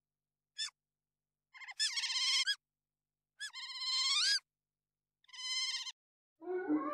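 Sea otter calling: one short high chirp, then three long, wavering high-pitched squeals about a second apart, each close to a second long and the last one shorter.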